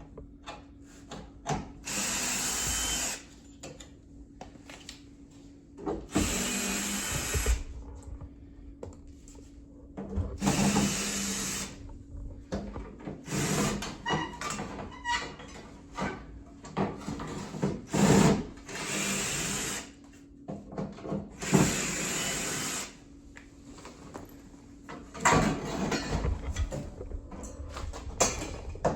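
Power drill with a nut-driver bit backing out the cabinet screws of a PTAC air conditioner, running in about six short bursts of a second or so each, with clicks and rattles of the screws and handling between the runs.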